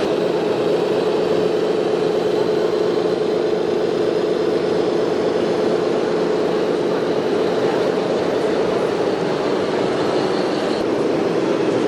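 Small electric motor and gearbox of an RC model tractor, running with a steady whine.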